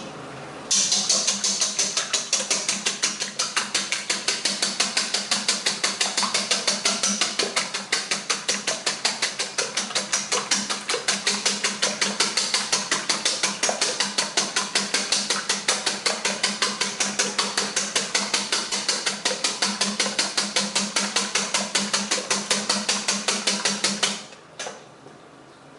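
Eggs being beaten with a fork in a bowl: a steady, rapid clatter of about four strokes a second that starts about a second in and stops shortly before the end.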